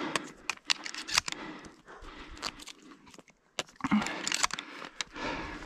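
Dry fallen leaves and twigs crunching and snapping: a string of irregular sharp crackles, busiest around four seconds in.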